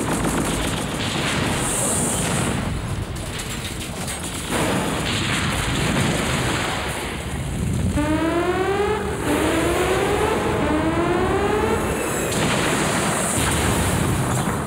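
Cartoon battle sound effects: gunfire and explosions rumbling on, with a run of repeated rising electronic zaps about halfway through.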